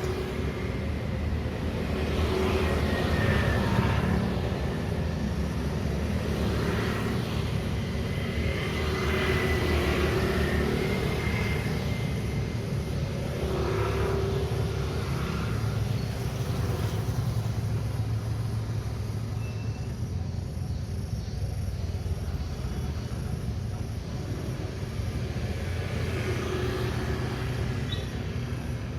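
City street traffic at an intersection: a steady low rumble of engines, with several vehicles passing close by one after another.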